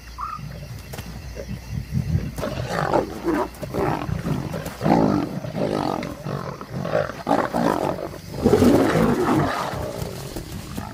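A pride of lions snarling and roaring over a kill, a run of rough calls one after another, loudest near the end: aggression among the lions feeding on the carcass.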